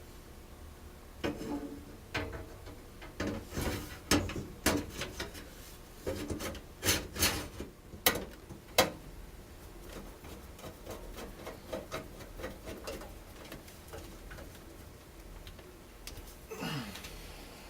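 Clicks, knocks and scraping of hardware being handled and fitted into a computer case, busiest in the first nine seconds, then lighter ticking and a short scrape near the end.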